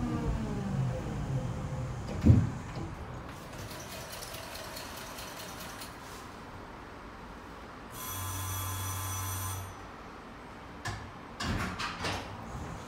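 Tatra tram's electric traction motors whining downward in pitch as the tram slows, then a single thump about two seconds in. Later a steady ringing signal sounds for nearly two seconds, followed by a run of clattering knocks near the end.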